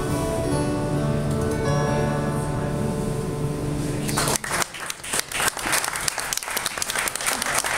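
Two acoustic guitars ringing out a held chord at the end of a song, then applause breaks out a little over four seconds in.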